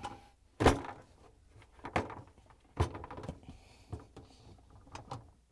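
A series of sharp plastic clicks and knocks, the loudest under a second in, as the dishwasher's water supply tube is twisted clockwise at the sump to free its three locking tabs.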